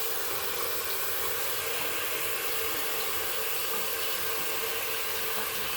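Water running steadily from the outlet of an electric water heater just after the water is turned on, an even hiss of flow while the heater warms it up.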